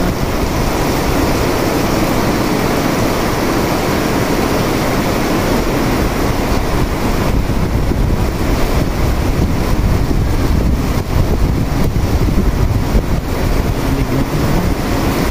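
Heavy rain pouring steadily onto a flooded concrete yard, a continuous rushing hiss.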